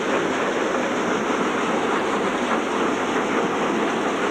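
Multipurpose thresher running steadily, a dense, even mechanical noise that holds without change.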